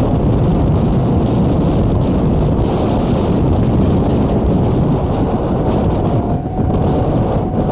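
Electric suburban trains running at speed on parallel tracks, heard from alongside the moving train: a loud, steady rumble of wheels on rail mixed with wind buffeting the microphone. A faint steady high tone joins about six seconds in.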